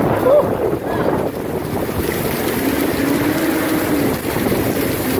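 Strong storm wind buffeting the microphone during a heavy downpour: a steady, loud low rushing with gusts.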